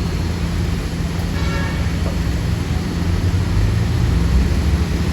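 Street traffic noise, a steady low rumble of passing vehicles. A short high-pitched sound rises briefly above it a little over a second in.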